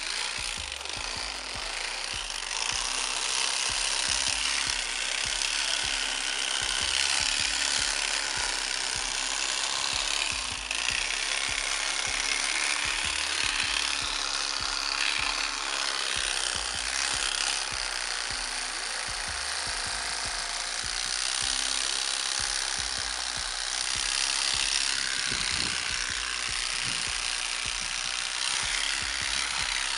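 Background music with a steady low beat, over the rasp of a fillet knife sawing through a bowfin's scales and flesh.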